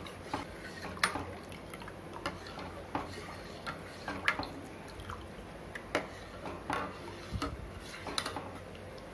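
Metal spoon stirring milk in a steel pot, with irregular light clinks and scrapes against the pot, roughly one a second, as the milk is kept moving while it heats.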